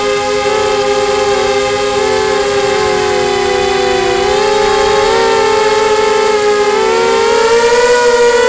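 Brushless motors and 5x3 propellers of a QAV250 racing quadcopter (2204-size 2300Kv motors), heard from its onboard camera: a loud multi-tone whine that wavers as the throttle changes, dipping slightly about halfway through and rising in pitch near the end.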